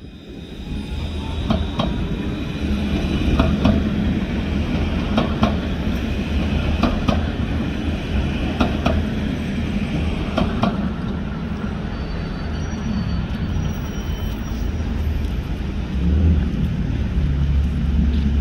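Alstom Citadis tram running past on rails with a steady low rumble, its wheels clicking in pairs about every two seconds for the first ten seconds or so. Near the end the rumble swells as another tram approaches.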